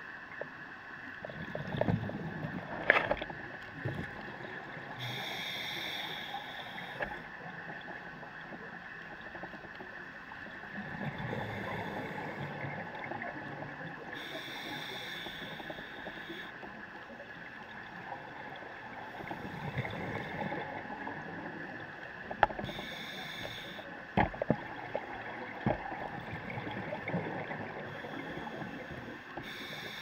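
Scuba diver breathing through a regulator underwater: a hissing inhale every eight seconds or so, each followed by a rumble of exhaled bubbles. A few sharp clicks come through as well.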